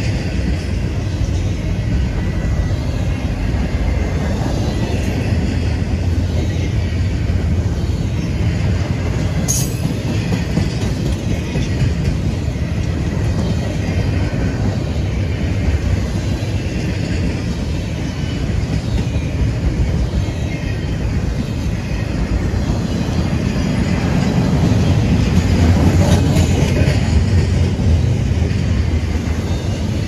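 Double-stack intermodal container well cars rolling past on the rail: a steady rumble of steel wheels on track, swelling louder about twenty-five seconds in. A single sharp click comes about ten seconds in.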